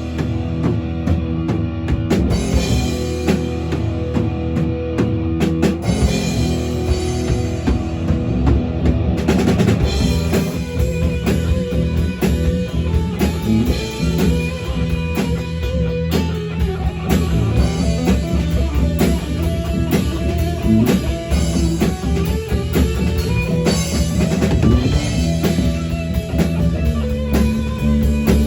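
Rock band playing: drum kit and guitar over a steady beat.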